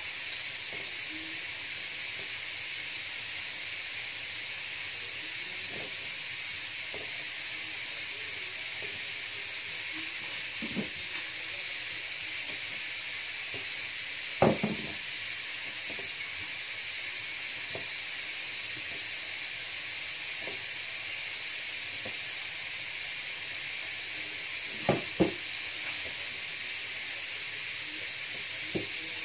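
Steady hiss of steam from a pressure cooker cooking on the stove, under the soft rustle of hands rubbing oiled couscous grains in a bowl. A few light knocks: one about halfway through and two close together near the end.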